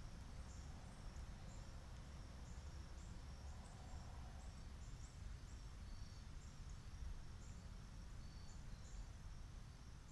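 Faint outdoor ambience: short high-pitched insect chirps repeating irregularly, over a low steady rumble of background noise.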